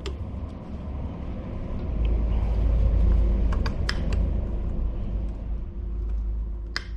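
A low rumble that swells about two seconds in and slowly eases off, with a few light clicks around the middle and near the end.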